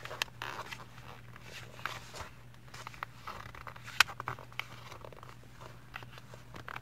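A sheet of paper being handled and creased by hand while folding a paper airplane: soft rustling with a few sharp crisp clicks, the loudest about four seconds in, over a low steady hum.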